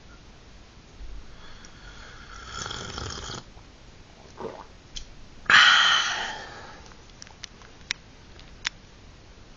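A person slurping hot tea from a china cup held close to the microphone. About five and a half seconds in comes a sudden, louder breathy rush of air that fades over a second, followed by a few faint clicks.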